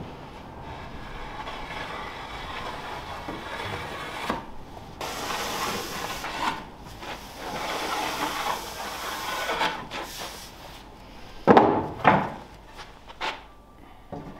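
A small hand plane worked in long strokes along the edge of an oak board, followed by a few sharp wooden knocks as the boards are picked up and set down near the end.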